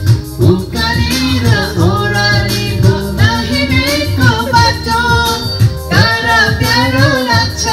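Karaoke singing into handheld microphones over a music backing track, with a woman's voice most prominent.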